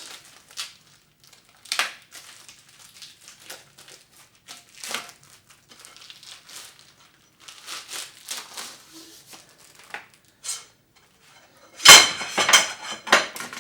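Packaging crinkling and rustling as Moducase metal bars are unwrapped. Near the end comes a loud clatter of sharp knocks as the metal bars strike each other.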